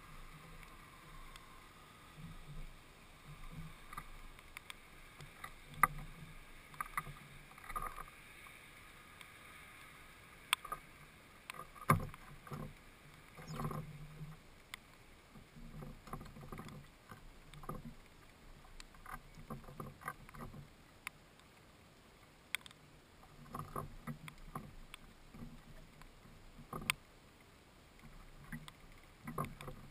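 A sparrow moving about a wooden feeder box: irregular sharp clicks and hollow knocks on the wood as it hops, grips and pecks at a fat ball in a net, close to the microphone.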